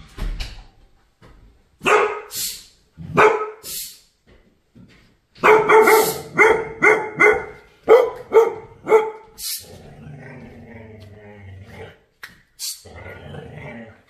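Dog barking in response to a doorbell: a few separate barks, then a quick run of about eight barks in the middle, easing into quieter, lower sounds near the end.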